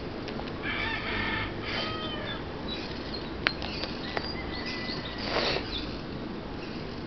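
Plastic binder sleeves crinkling and clicking as the pages of a card binder are turned, with a short crinkly rush about five seconds in. A bird calls a few times in the background in the first seconds.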